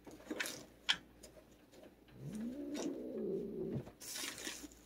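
Cat giving a low, drawn-out growling moan that rises and then falls in pitch for about a second and a half, then a short hiss near the end: an angry cat's warning.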